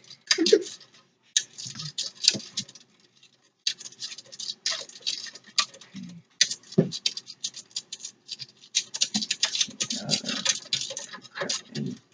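A small plastic spoon stirring borax into water in a bowl, scraping and tapping against the sides and bottom in a fast, irregular run of clicks and scratches, with a brief pause about three seconds in.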